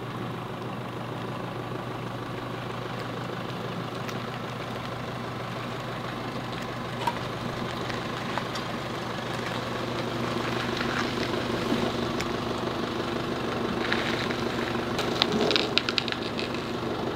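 Chevrolet Colorado pickup truck's engine running at low speed as the truck reverses, growing louder as it comes closer.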